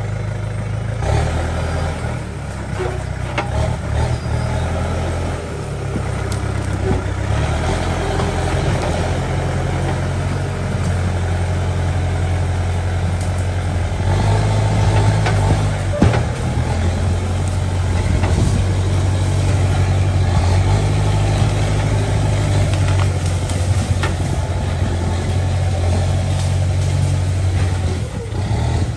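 LiuGong backhoe loader's diesel engine running steadily under load as the machine pushes into brush, getting louder about halfway through. A few sharp cracks sound over the engine, the loudest shortly after the engine gets louder.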